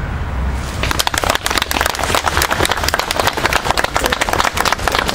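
A small crowd applauding by hand, the clapping starting about a second in.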